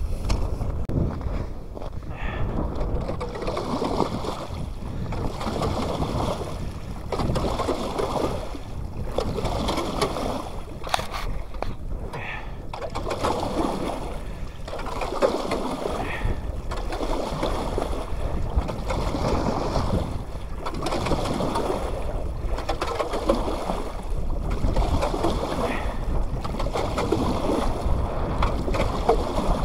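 Water sloshing and splashing in an open channel cut through lake ice, surging in rhythmic strokes about every two seconds as the water is churned to make a draw that brings fish to the opening.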